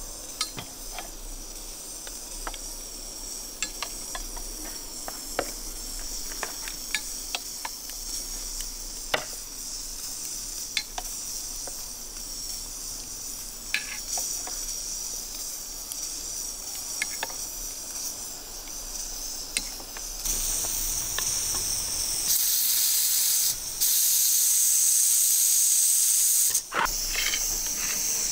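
Metal skewers of sturgeon steaks being set down on a charcoal grill, clinking sharply many times, over a steady sizzling hiss from the hot coals. The hiss grows much louder for several seconds near the end.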